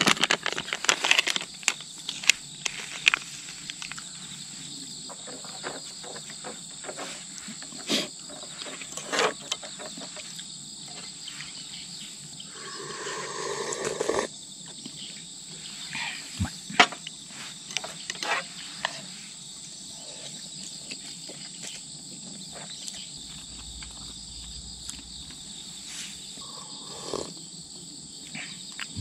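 Insects chirring steadily at a high pitch, with scattered sharp clicks and knocks from eating with chopsticks out of camp cookware.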